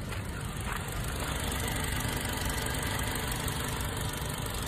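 Toyota Hiace van's 1TR four-cylinder petrol engine idling steadily, heard close at the open engine bay.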